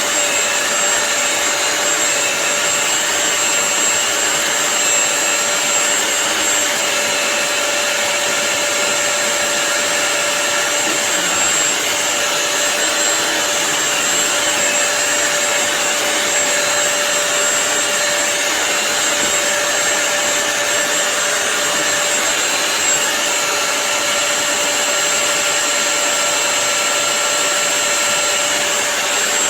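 BISSELL CrossWave wet-dry multi-surface vacuum cleaner running steadily: a constant motor whine, with a steady high whistle over a rush of air.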